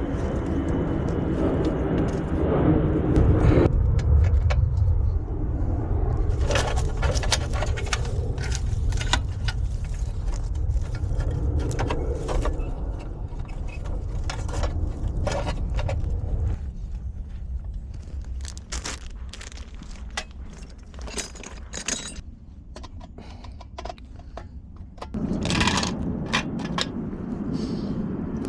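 Metal clinking, rattling and scraping of hand tools and fittings being handled during electrical hookup work, over a steady low rumble. There are many short clicks, with a louder burst of rattling near the end.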